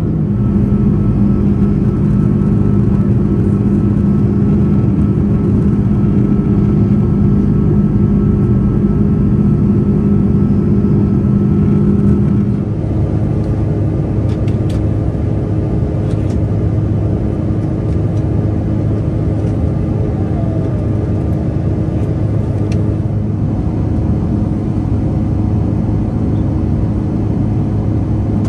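Airbus A330 cabin noise in flight: a steady jet-engine and airflow drone with a low hum. About twelve seconds in it drops slightly and changes tone.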